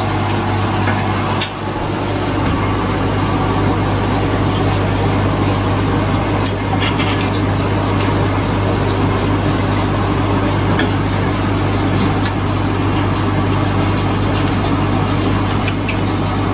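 Aquarium water pump and filter running: a steady low hum with rushing water, and a few light clicks.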